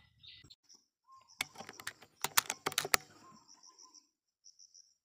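A quick run of sharp clicks and knocks lasting about a second and a half, then a high chirping call pulsing rapidly, several times a second.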